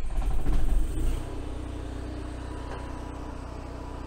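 Onan QG 3600 LP propane generator starting up: louder and rougher for about the first second as it fires, then settling into steady running at constant speed, heard from inside the motorhome.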